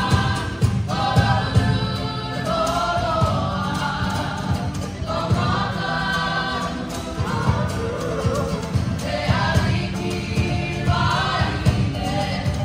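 Live Cook Islands song: a group of voices singing together over fast, steady drumming.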